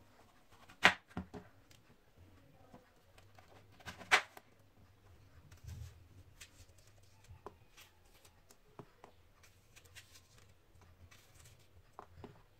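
Kitchen knife cutting an apple on a wooden cutting board: two sharp knocks, about a second in and three seconds later, as the blade goes through onto the board, then faint clicks and scrapes as the core is cut out.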